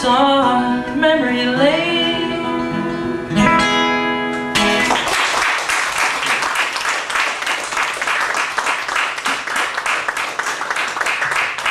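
A male singer holds and bends the last sung note over acoustic guitar, and the song ends about four and a half seconds in. Then audience clapping follows to the end.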